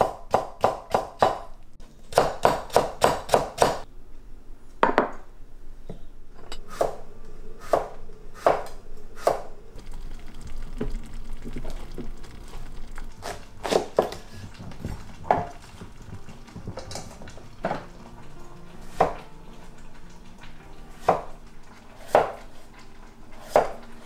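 Kitchen knife chopping vegetables on a wooden cutting board: two quick runs of strokes in the first few seconds, then slower single cuts spaced about a second apart.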